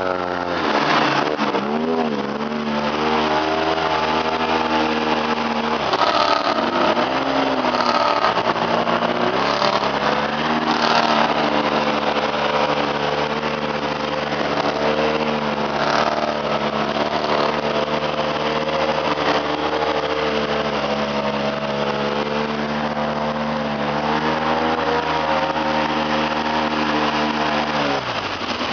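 ATV engine running under load on a trail ride, the revs rising and falling as the throttle is worked, with short drops in engine speed a few times, the last near the end.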